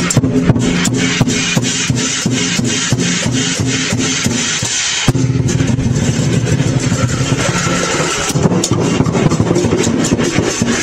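Lion-dance percussion ensemble of drum, cymbals and gong beating a steady rhythm of about three strikes a second over a low ringing tone, with a short break about five seconds in.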